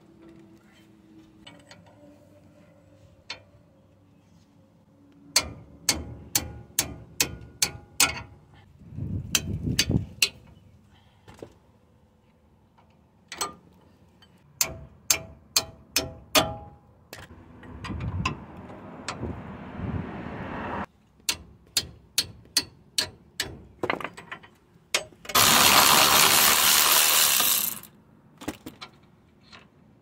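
Runs of sharp metallic clicks and clinks as a 17mm wrench is worked on a front suspension nut. Near the end a cordless impact gun runs loudly for about two and a half seconds.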